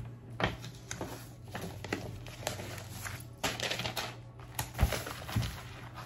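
Handling packaging at a desk: irregular light clicks and taps, with the crinkle of a metallic bubble mailer in the middle and a sharper knock about five seconds in.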